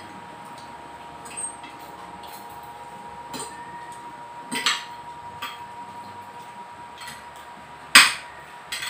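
Spoons and forks clinking against plates during a meal: a few scattered clinks, with one sharp, louder clink near the end.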